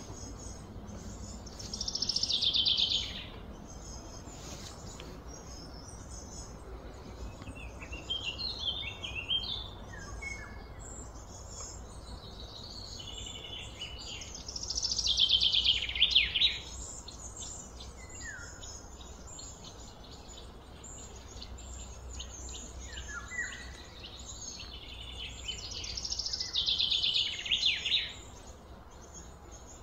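Songbird singing: a loud, fast run of notes falling in pitch, repeated three times about twelve seconds apart, with softer chirps between the songs over a steady low hum.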